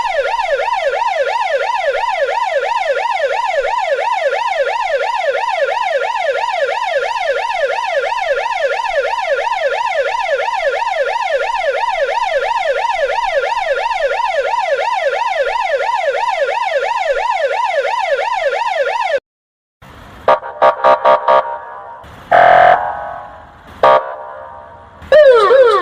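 Russian police car siren in a fast yelp, a rapid up-and-down sweep about three times a second. About 19 s in it cuts off sharply and the 'kryakalka' special signal sounds as a string of short loud quacking blasts and then a longer blast. Near the end gliding siren wails start again.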